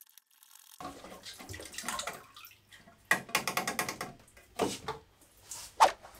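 Water being sucked out of a self-watering pot's reservoir through a pump, gurgling in four uneven spurts as the last water and air are drawn up: the reservoir is nearly empty.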